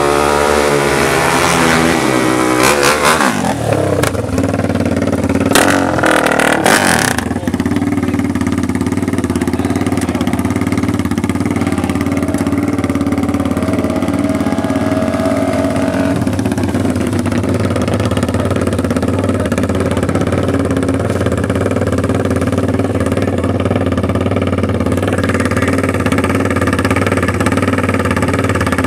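Small KTM youth dirt bike engine running at the drag strip's starting line: revved up and down a few times in the first several seconds, then holding a steady idle.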